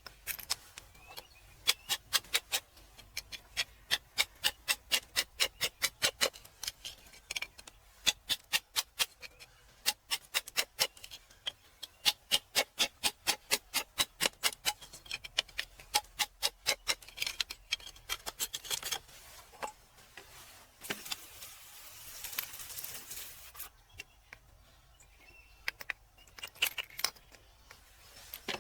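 Quick runs of sharp taps, several a second, of a hand tool chipping at rock, with a few seconds of scraping about two-thirds of the way through.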